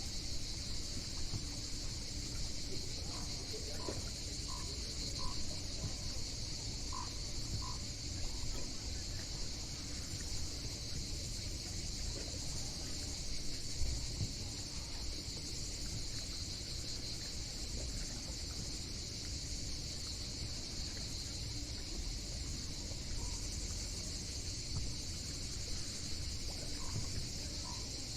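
Steady, unbroken shrill insect chorus over a low continuous rumble, with a few short faint chirps in the first ten seconds or so.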